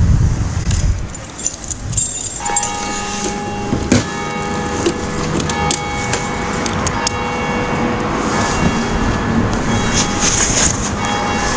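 Motor scooter engine starting about two seconds in, then idling with a steady whine.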